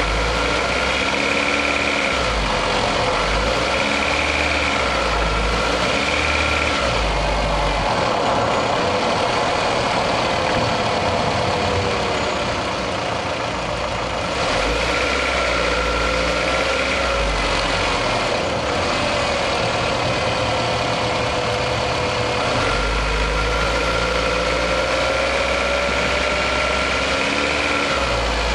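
Toyota RAV4's 1AZ-FE 2.0-litre four-cylinder engine running under load on the move, heard from inside the engine bay, pulling in several surges of throttle. The warm engine has a characteristic knock that comes up under load.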